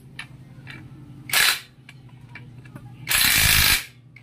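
Cordless impact wrench running in two bursts, a short one about a second in and a longer one near the end, driving on the rear axle nut of a Yamaha Aerox 155 scooter, a nut too stiff to run on by hand.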